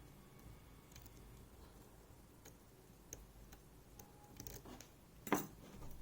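Faint, scattered metallic ticks of lock picks working inside a MIWA U9 lock, with a few quick clicks and then a louder clack about five seconds in.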